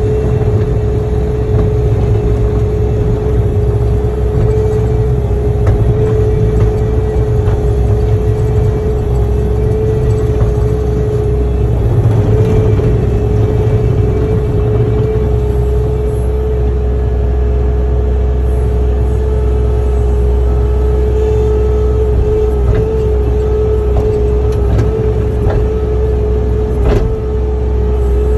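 Earth-moving machine's engine running steadily under load, heard from the operator's cab: a loud, deep rumble with a constant high whine over it.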